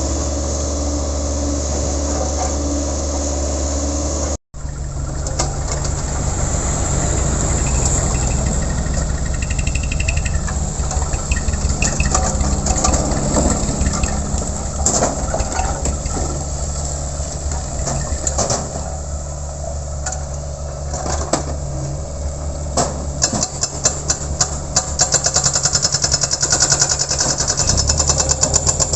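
Diesel engine of a Sunward 80E9 mini excavator running steadily, with its hydraulic breaker hammer striking in rapid, evenly spaced blows that grow stronger near the end. The sound cuts out briefly about four seconds in.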